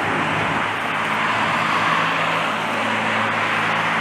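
A vehicle engine running steadily with a low hum, over a steady rushing noise like traffic.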